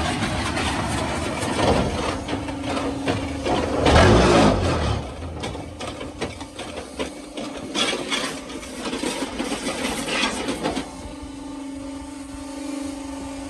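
Concrete paving block machine working: a steady hum under repeated clattering and metallic knocking as the mold and feed box run through their cycle, with a louder, heavier rumble about four seconds in.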